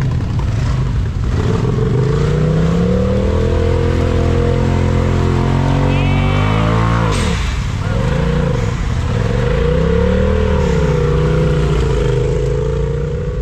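Side-by-side UTV engine revving under load while working out of a deep mud hole. The revs climb steadily for several seconds, drop sharply about seven seconds in, then rise and fall a few times before holding steady.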